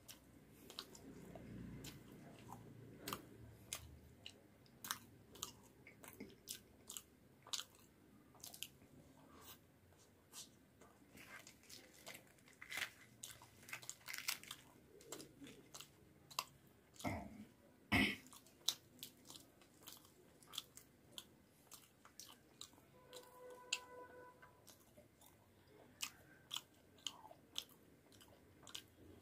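A man chewing puri and fried potatoes close to the microphone: a steady run of wet smacks and clicks from the mouth, with a louder knock about 18 seconds in.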